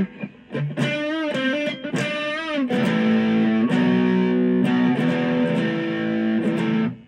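Epiphone Les Paul SL electric guitar played through an amp on its neck ceramic single-coil pickup. It opens with a short lick of bent notes with vibrato, then a chord that is held and rings for several seconds before being cut off near the end.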